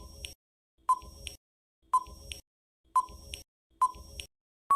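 Countdown timer sound effect: five short beeps, one each second, and a long steady beep that begins right at the end.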